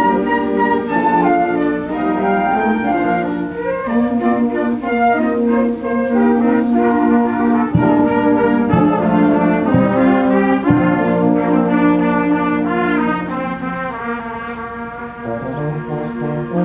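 Youth wind band playing an arrangement of American folk songs, with the brass prominent. A few sharp percussion strikes come about halfway through.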